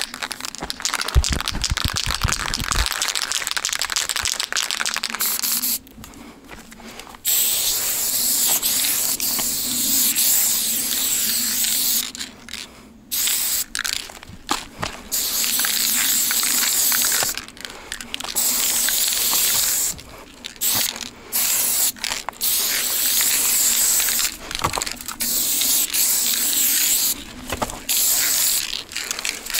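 Aerosol spray-paint can hissing in long bursts separated by brief pauses, as black paint fills in the letters of a graffiti throw-up.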